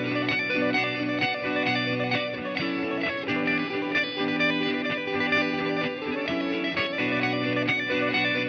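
Two clean-to-lightly-driven electric guitars, a Fender Stratocaster and a Telecaster-style guitar, playing a blues jam together: a rhythm part of held chords changing every second or so under a lead line of quick single notes and bends.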